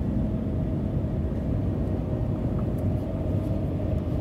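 Cabin noise of the Shanghai maglev train running along its guideway: a steady low rumble with a faint steady hum.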